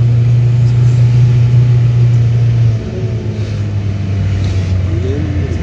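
A vehicle's engine heard from inside the cabin, a steady low drone that drops in pitch and loudness about three seconds in as the revs fall and the vehicle slows.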